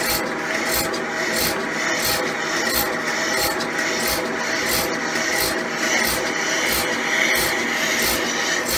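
Portable electric cow milking machine running, its vacuum pump going with a steady pulsing rhythm of a few beats a second while it builds vacuum.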